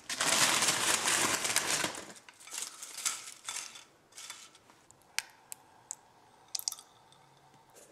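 Foil crisp bag crinkling loudly for about two seconds as ketchup-flavoured crisps are shaken out onto a plate, then softer rustles. A few sharp clicks follow as a plastic squeeze bottle of ketchup is squeezed onto a plate.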